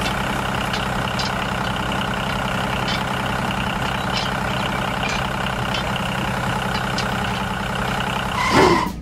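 Tractor diesel engine running steadily. Near the end a short swooping sound cuts in.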